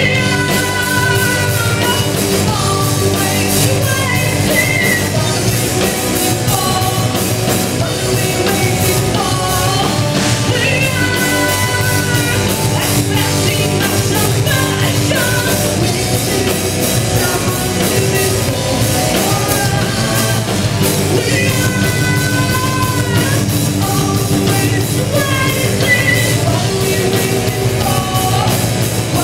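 Live heavy metal band playing: a female vocalist sings melodic lines over distorted guitar, bass and pounding drums, loud and unbroken.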